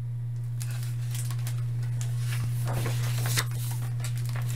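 Paper rustling as the pages of a hardcover picture book are handled and turned, in two spells, about a second in and again near three seconds, over a steady low hum.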